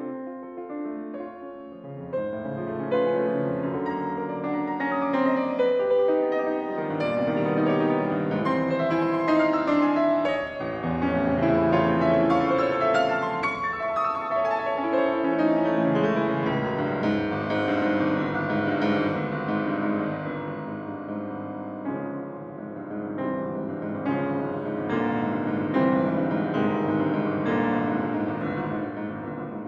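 Solo piano playing a classical piece in dense, full chords, soft for the first couple of seconds and then much louder.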